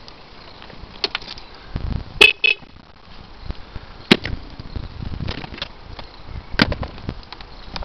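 Two short toots from the SYM Mio 50 scooter's electric horn, about two seconds in, among a few sharp clicks and clunks from the seat being unlatched and lifted.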